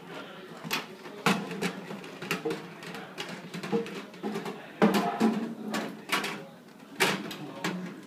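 A small black lockable case being handled and opened by hand: a run of clicks, knocks and rattles as it is turned over and its lid and fittings are worked, with the loudest knocks about a second in, near five seconds and at seven seconds.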